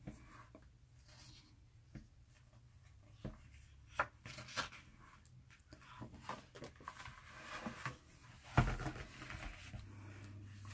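Faint rustling and light taps of hands handling a hardcover book's glossy pages. A page is turned over near the end with a soft thump, the loudest sound.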